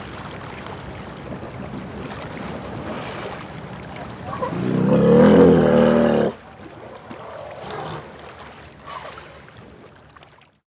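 Wind buffeting the microphone over outdoor ambience, with one loud drawn-out low call from an elephant about halfway that cuts off abruptly.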